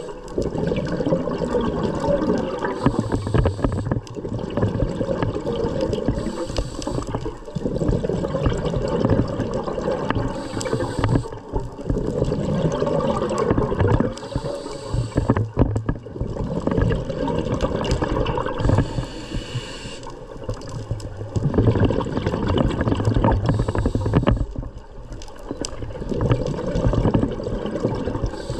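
Scuba diver breathing through an open-circuit regulator underwater: a short hiss on each inhale, then a long rumbling gurgle of exhaled bubbles, repeating in a slow, steady cycle.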